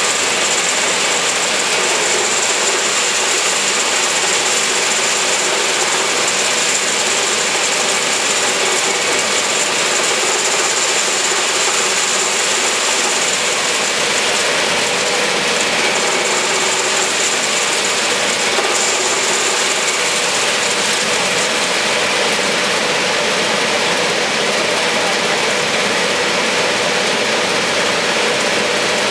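Pellet cooler running: a vibrating screen shaking pellets across its mesh and out the chute, with the blower fan going. A steady, loud mechanical rattle with a high whine over it.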